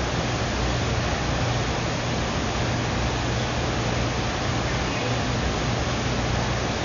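Steady, even hiss with a low hum underneath, with no distinct knocks or clicks.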